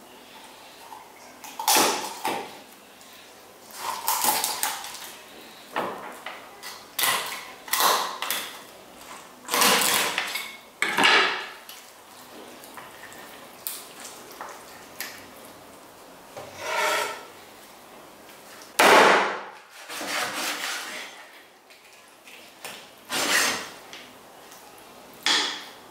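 Large kitchen knife chopping coot carcasses in half on a wooden cutting board: irregular knocks and cracks of the blade through the birds and onto the board, a second or two apart, with the meat handled between cuts.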